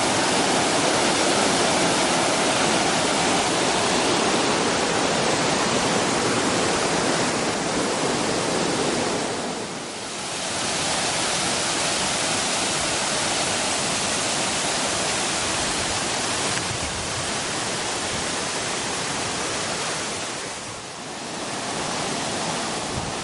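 Yoro Falls pouring, a steady rushing of falling water that dips briefly twice, about ten and twenty-one seconds in.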